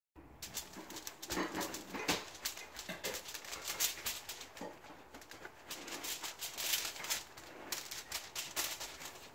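Paper towels rustling and aluminium foil crinkling as pork belly is patted dry by hand, in a continuous run of irregular crackles.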